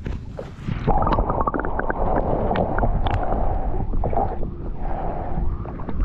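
Muffled rumbling and gurgling water heard through an action camera held underwater, with scattered small clicks and taps. It comes in suddenly about a second in, as the camera goes below the surface.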